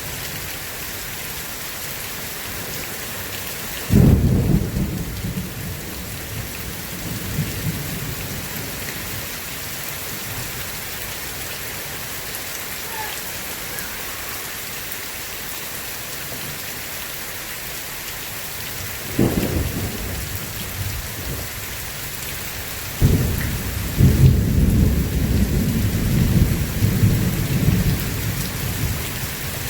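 Steady heavy rain on a surface with thunder: a sudden clap about four seconds in, another about two-thirds of the way through, and a longer rolling rumble of several claps near the end.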